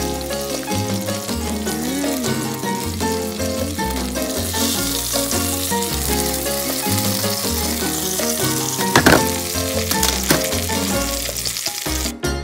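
Salmon fillets sizzling as they fry in butter in a frying pan, under background music. The sizzle grows louder about four seconds in, and there is a single sharp click about nine seconds in.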